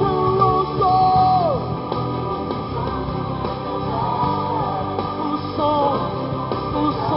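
Gospel rock worship music: a full band keeps playing under a wavering, bending lead melody line.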